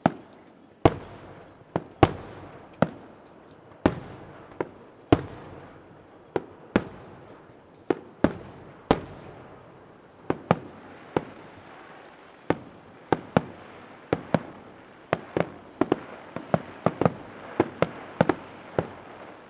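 Aerial firework shells bursting in a display, a series of sharp bangs each with a trailing echo. They come about once a second at first and grow quicker and denser toward the end.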